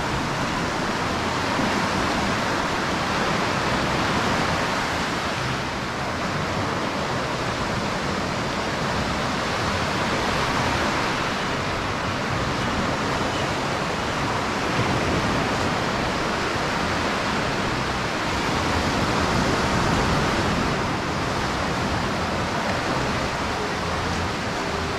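Ocean surf breaking and washing up on a sandy beach, a steady loud rush that swells gently every several seconds.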